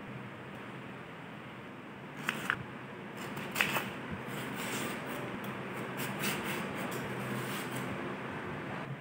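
A kitchen knife peeling and cutting a raw green plantain on a wooden cutting board: scraping strokes with a few sharp knocks of the blade on the board, the loudest about two and a half and three and a half seconds in.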